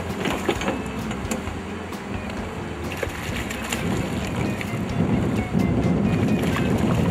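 A hooked trout splashing and thrashing at the water's surface, over a steady rush of river and wind noise that grows louder in the second half.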